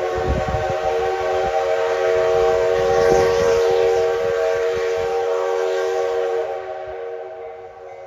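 Steam whistle of the D51 200 steam locomotive, one long steady blast of several tones sounding together. It breaks off about six and a half seconds in and dies away over the next second, with a rushing hiss under it.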